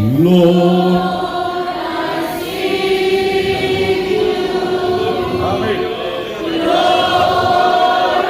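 A congregation singing a slow worship song in praise of Jesus, holding long notes on "Lord", with a rising glide into the first note.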